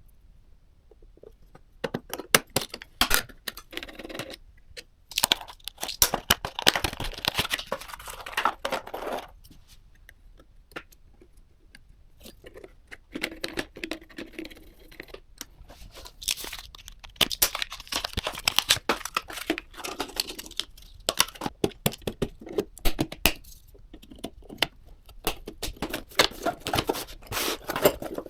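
PC-part packaging being handled and opened: plastic wrap and bags crinkling and tearing, mixed with small clicks and knocks. It comes in several busy stretches of a few seconds each, with short pauses between them.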